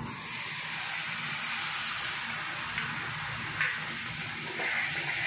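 Water poured into a hot kadai of fried masala paste and oil, sizzling steadily as it hits the hot oil. The masala has been fried until the oil separates.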